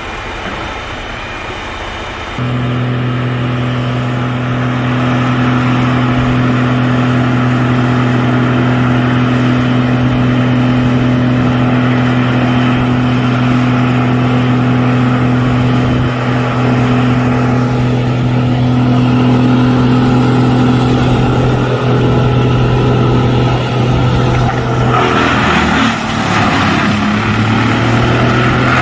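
A large engine steps up abruptly from idle a couple of seconds in and then runs at a steady high speed. Near the end its note changes and turns rougher.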